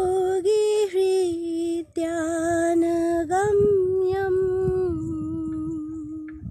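A female voice singing a slow Sanskrit devotional chant to Vishnu in long held notes, with a few short breaths and small steps in pitch. The last note fades out near the end.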